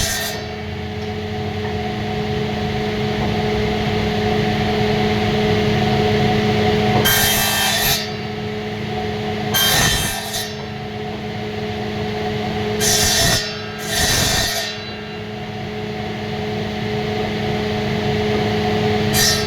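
An electric woodworking machine runs with a steady motor hum. Several times, about every few seconds, a harsher hissing burst of cutting noise breaks in as wood is fed through the cutter.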